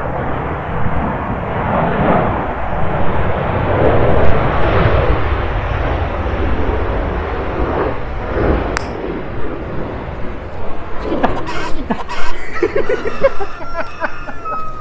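Aircraft passing overhead: a broad rushing rumble that builds to its loudest about four seconds in and fades away over the next several seconds. A few sharp clicks follow near the end.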